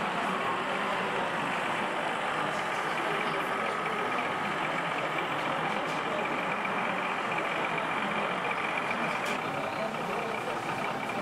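Steady din of a crowded exhibition hall, many people talking at once, with a faint steady high whine running through it.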